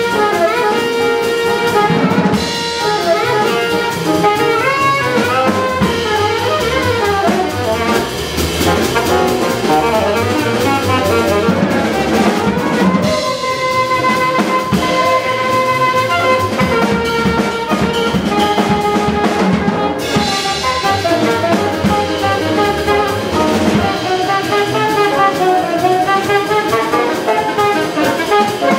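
A live jazz combo playing: saxophone and trombone over grand piano, upright bass and drum kit.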